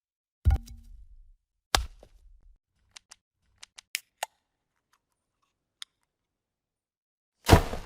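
A run of video transition sound effects: a short deep impact about half a second in, another a second later, a scatter of small sharp clicks through the middle, and a louder, longer swoosh-hit near the end.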